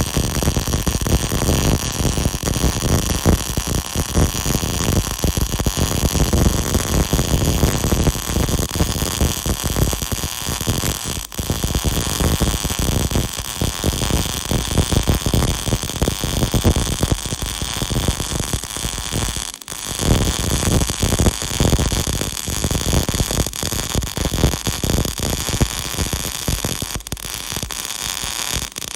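CO2-shielded MIG welding arc from a Panasonic 500 welder, a steady dense crackle while the bead is laid. The arc breaks off briefly a few times, about 11 s, 20 s and 27 s in, before striking again.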